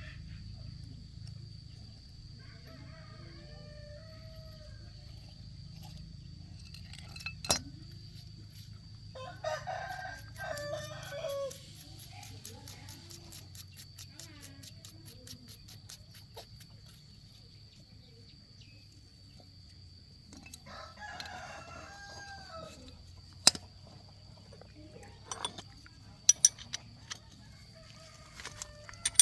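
A rooster crowing twice, once about ten seconds in and again about twenty-one seconds in, each crow lasting about two seconds. A few sharp clicks or knocks fall between the crows, over a low steady hum.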